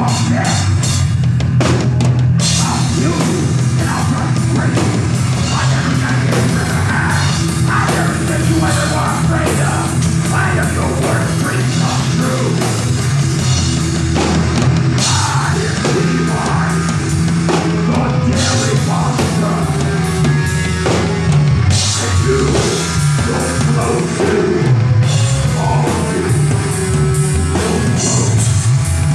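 A horror punk band playing live, with electric guitar, bass guitar and a full drum kit.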